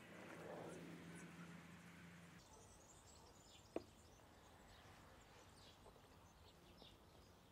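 Near silence with faint bird chirps in the background. About four seconds in comes a single sharp tap as the glass olive-oil bottle is set down on the wooden cutting board.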